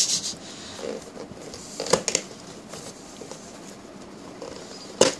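A cardboard toy box being handled and opened by hand, its taped flap worked loose: light rustling and scraping of cardboard, with sharp clicks about two seconds in and again near the end.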